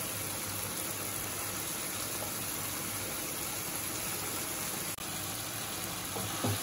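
Chicken pieces sizzling in a hot nonstick wok, a steady hiss. It breaks off for an instant about five seconds in.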